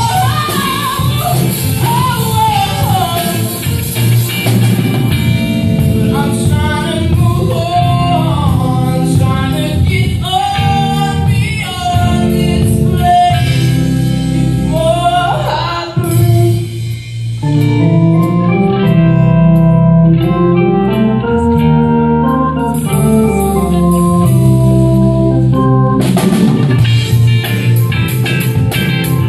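Live rock band playing: electric guitar, bass guitar, keyboard and drum kit under a male lead vocal. After a brief lull about halfway through, the singing stops and the band carries on with long held melodic notes, and the cymbals come back strongly near the end.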